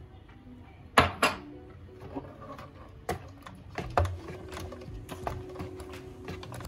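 A metal spoon knocks twice against the mixing bowl as flour is tipped into the batter. About four seconds in, an electric hand mixer starts and runs with a steady motor hum, beating the flour and egg into the cake batter.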